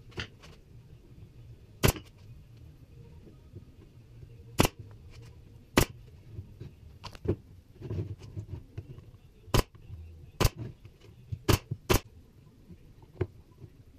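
Pneumatic brad nailer firing single shots to fasten plywood pieces: about seven sharp snaps at irregular intervals, with softer knocks of wood being handled between them.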